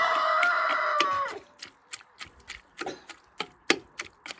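A rooster crowing once, a sustained call of about a second and a half that slides down at the end. It is followed by a run of sharp knocks, about three a second.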